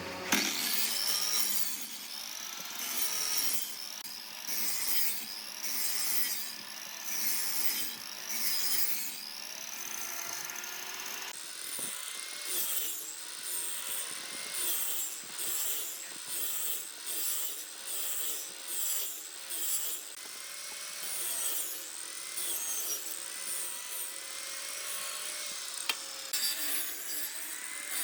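A tool cutting or abrading wood in repeated strokes, about one to two a second, with a thin high whine that dips and rises with each stroke.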